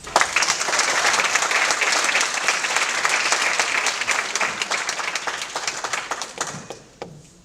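Audience applauding. The clapping starts suddenly and dies away in the last second or so.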